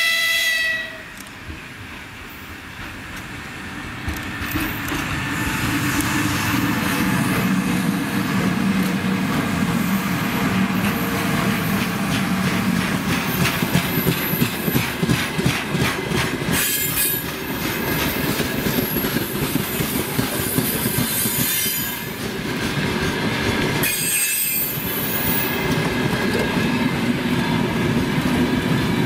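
A 2ES10 electric freight locomotive gives a short horn blast, then its freight train rolls past, the wagon wheels clattering in a fast rhythm over the rails with brief high-pitched wheel squeals.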